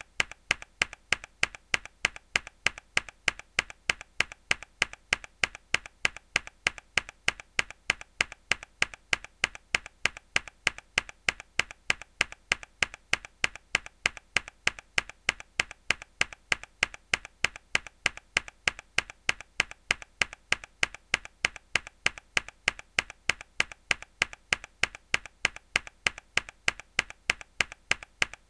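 A hard key press on a mechanical keyboard, repeated as a steady even rhythm of sharp clicks, about three a second.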